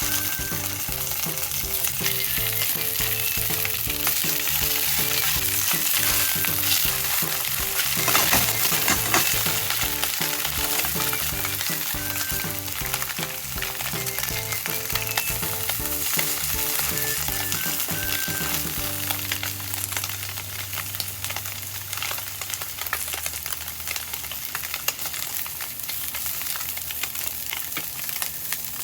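Food sizzling as it fries in a pan, a steady crackling hiss throughout.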